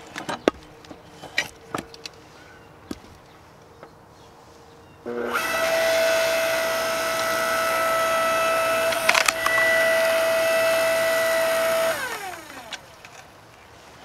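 Wood knocking as logs are handled. About five seconds in, a 5-ton electric log splitter's motor and hydraulic pump start with a steady whine. A loud crack comes about nine seconds in as the log splits, and about twelve seconds in the motor cuts off and its pitch falls as it spins down.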